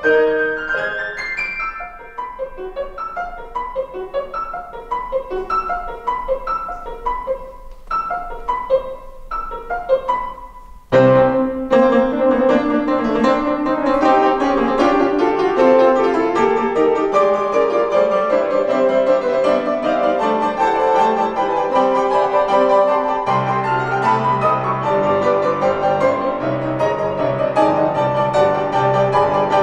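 Grand piano played four hands by two pianists. A light, quieter passage of separate notes for about the first ten seconds, then a sudden loud entry of full chords and a dense texture with a heavy bass line that carries on, the bass growing fuller about two-thirds of the way through.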